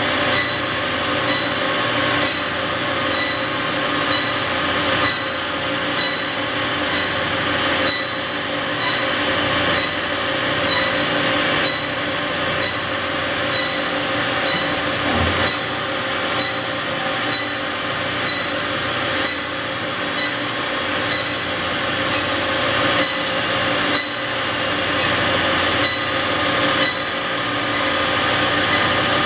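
1994 DoAll C305A automatic horizontal bandsaw running on 230 V three-phase, a steady machine hum with a sharp regular tick about once a second. It is run dry, with no coolant in the machine.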